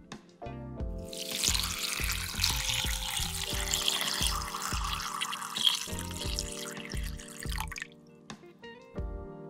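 Water poured from a glass jug into a glass bowl of parsley, starting about a second in and stopping shortly before the end. Background music with a steady beat plays underneath.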